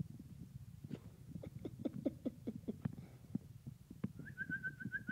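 Vizsla puppy at play: a run of short, rapid sounds, about six a second, then about a second from the end a fast, high chirping trill begins.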